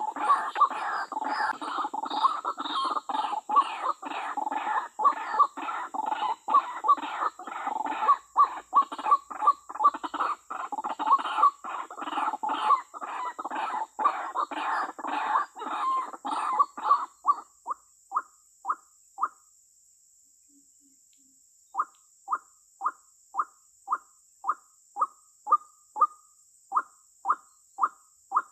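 White-breasted waterhen (ruak-ruak) lure call, the female's call used to draw in males, repeated rapidly as a dense run of notes. Later it thins to single short notes about two a second, breaks off briefly, then starts again.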